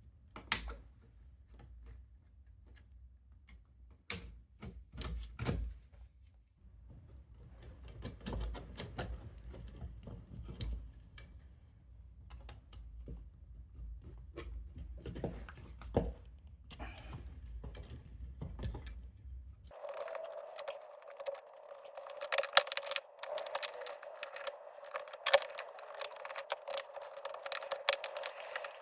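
Clicks, taps and small knocks of hand tools and a plastic electrical socket faceplate as the socket is unscrewed and swapped. About twenty seconds in, the background changes abruptly to a steady hiss and the clicking continues.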